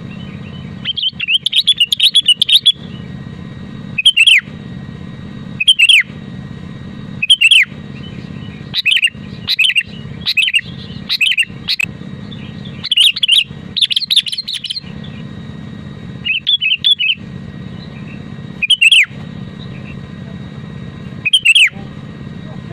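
Sooty-headed bulbul (kutilang) singing in lively form: loud, short phrases of falling notes repeated every two seconds or so, over a steady low hum.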